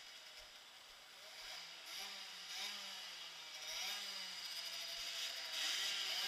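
Small motorcycle engines running close by, a buzzing note that rises and falls as the throttle is blipped several times, growing louder toward the end as a bike pulls past.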